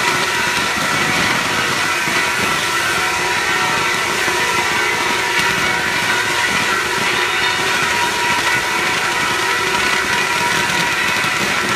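Spark-shower fireworks of a fire festival pouring down in a continuous, steady rushing hiss, with several high whistling tones running through it.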